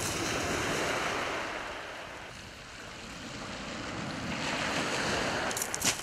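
Waves breaking and washing over a shingle beach, the surf swelling at the start, easing off, then swelling again about four and a half seconds in.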